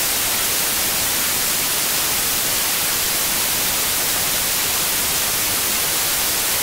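Steady static hiss, like an untuned analogue TV, heaviest in the high end and even in level throughout.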